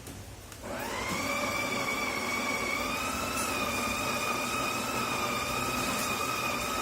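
A small electric motor starts under a second in. Its whine rises quickly, then holds steady in pitch with a layer of noise beneath it.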